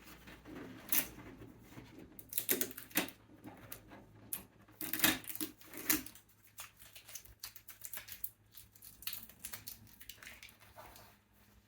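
Irregular clicks, taps and rustles of a newly unboxed inkjet printer and its packaging being handled, thickest in the first half and thinning out later.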